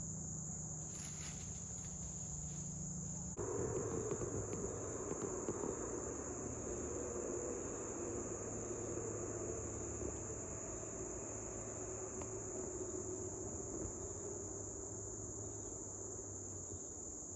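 Steady high-pitched insect chorus, the continuous trill of crickets. About three seconds in, a low rushing noise starts and carries on underneath.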